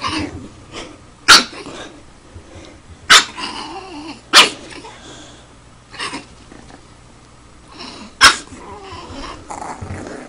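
Pug puppy barking at its own reflection in a mirror: four sharp yaps, the last after a longer pause, with softer growly sounds between them.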